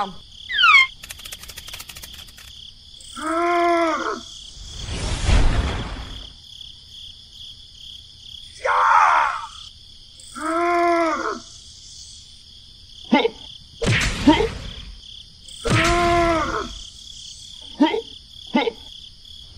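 Cartoon-style voice effects for the peanut figures: several short, strained groans of effort a few seconds apart, over a steady chirring of crickets, with a few brief swishes and clicks between the groans.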